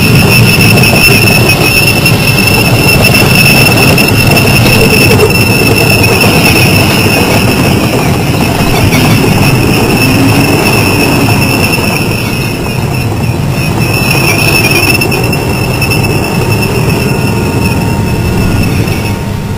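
M1A1 Abrams tank passing: a steady high whine from its AGT1500 gas turbine over the loud noise of its tracks and running gear.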